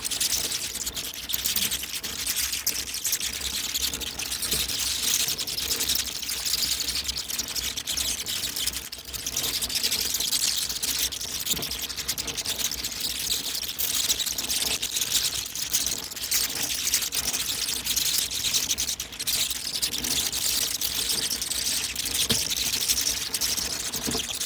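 Hundreds of bats flying out of their roost together: a dense, unbroken high-pitched crackle.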